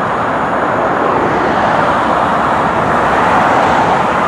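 Steady highway traffic noise: a dense, even rush of vehicles and tyres on the road.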